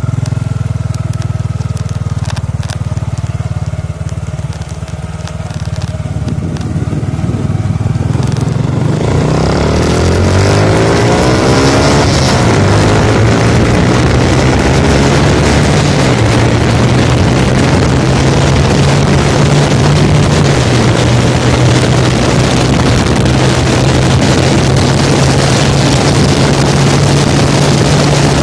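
Honda XRM125 Fi's single-cylinder four-stroke engine, breathing through an Organsport power pipe exhaust, pulling hard from a standstill up to top speed, its pitch rising through the gears. From about ten seconds in, heavy wind noise on the handlebar-mounted phone's microphone covers most of the sound, over steady high-speed running near 110 km/h.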